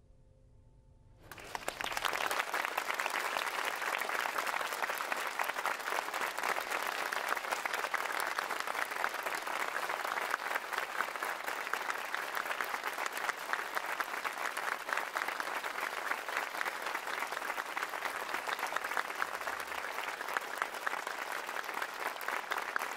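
A faint held musical note dies away. About a second in, audience applause breaks out and then goes on, dense and steady.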